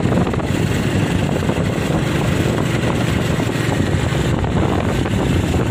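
A vehicle running steadily along a road, its noise mixed with wind rumbling on the microphone.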